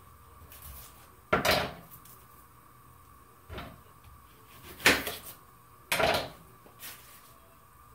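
Kitchen clatter from things being handled and set down: five separate sharp knocks and bangs, three of them loud, each with a short ring after it.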